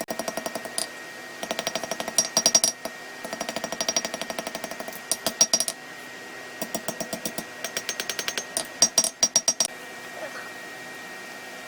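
Hammer striking hot steel on an anvil in quick runs of blows, several a second, with a ringing note carrying over them; short bursts of heavier blows come about two seconds in, around five seconds in, and near the end. The steel is being curled into a tight scroll at the end of the knife.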